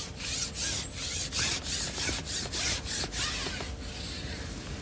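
Rhythmic rubbing strokes, about three a second, of a long fishing pole being slid hand over hand over pole rollers. The strokes stop near the end.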